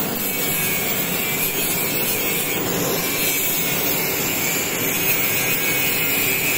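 Hand-held angle grinder grinding steel, a steady high-pitched grinding noise.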